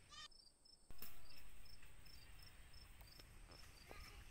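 Crickets chirping steadily, a short high chirp about three times a second, with scattered faint clicks and rustles. About a second in, a louder low rumble comes in and slowly fades.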